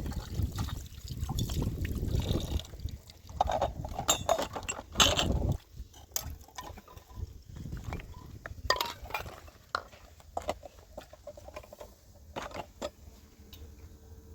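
Household clatter: clinks and knocks, probably dishes, over a low rumble that stops suddenly about five and a half seconds in, then sparse clinks.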